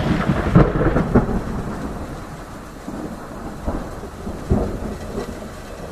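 Thunder rumbling over steady rain, with sharp cracks in the first second and again near four and a half seconds, the rumble slowly dying away.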